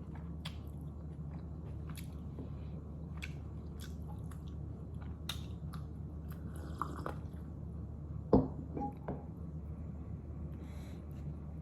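Close-up mouth sounds of someone chewing momo dumplings, with scattered small wet clicks, over a steady low hum. A single sharp knock about eight seconds in is the loudest sound.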